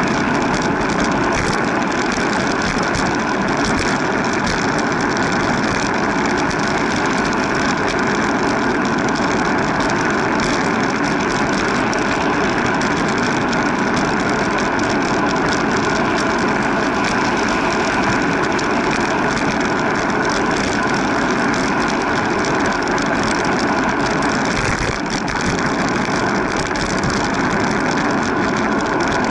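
Steady engine and wind noise from a vehicle being ridden along a city street, with a brief slight dip about 25 seconds in.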